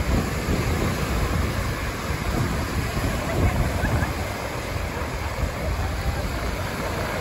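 Small Gulf of Mexico waves breaking and washing up the beach in a steady rush, with wind rumbling on the microphone.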